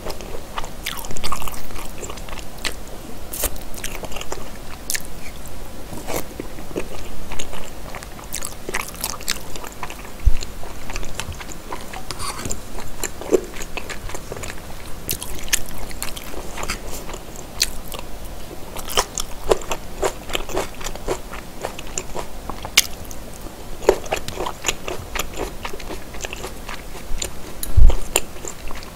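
Close-miked chewing of rosé-sauce seafood pasta with Chinese glass noodles: a steady run of wet, sticky mouth clicks and smacks. A single dull knock comes near the end.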